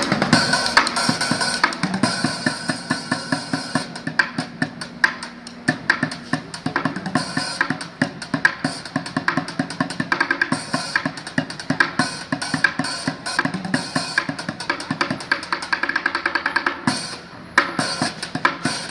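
Street drum solo played on upturned plastic buckets and metal pans: fast, dense strikes all through, with a brief break near the end before the playing picks up again.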